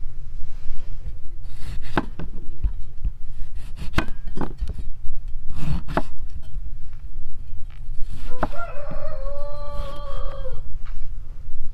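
A knife cuts a lemon on a wooden chopping board, with a few sharp knocks of the blade on the board. About eight seconds in, a rooster crows once, a held call of about two and a half seconds that drops at the end.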